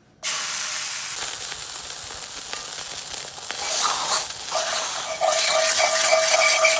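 A slice of bologna sizzling in a hot cast-iron skillet. About halfway through, as a fork pokes into the puffed-up slice, a steady whistling hiss joins in over the sizzle.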